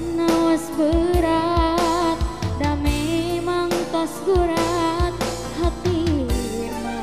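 Female voice singing a Sundanese pop song, holding long notes with vibrato, over electronic keyboard accompaniment with a steady drum beat.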